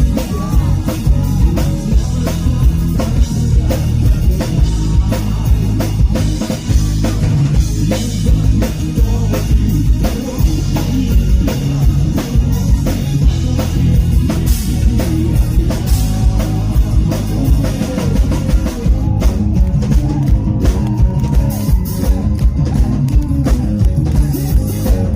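A live rock band plays an acoustic arrangement, with a drum kit keeping a steady beat under guitars. About three-quarters of the way through, the cymbals drop away and the guitar is left more to the fore.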